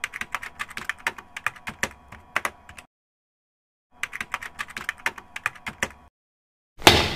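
Computer keyboard typing sound effect: two runs of rapid key clicks, the first about three seconds long and the second about two, with a short silence between. Near the end comes a single loud thump that fades out over about a second.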